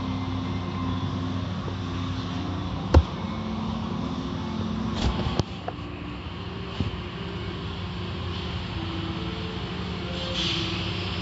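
Automatic tunnel car wash heard from inside the car: steady hum of the wash machinery with water and foam spraying as cloth curtain strips and brushes sweep over the car. A sharp knock comes about three seconds in, and a few more follow about five seconds in.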